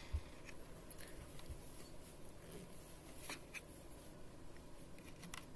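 Faint handling noises from a partly dismantled steam iron: light scratches and a few small clicks as fingers move over its plastic and metal parts, with a soft knock just after the start.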